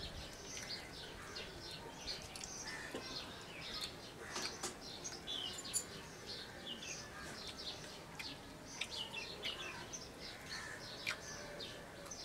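Small birds chirping over and over, many short calls, some dropping in pitch, with a few sharp clicks now and then.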